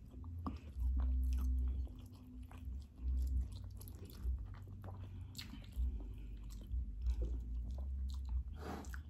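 Close-miked chewing and biting of food: wet mouth sounds and many small scattered clicks, over low dull thumps.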